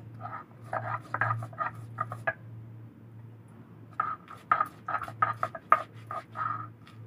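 Stone roller on a sil-nora grinding slab crushing garlic cloves and nigella seeds in a run of short grinding strokes. The strokes pause for about a second and a half, then start again faster.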